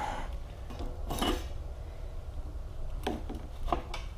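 A Yoshimura muffler being slid by hand onto the exhaust mid-pipe: a scrape of metal on metal about a second in, then a few light clinks near the end.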